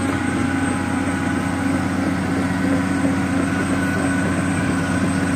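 Caterpillar 365C tracked excavator's big diesel engine running steadily, with a faint steady whine riding above the engine note.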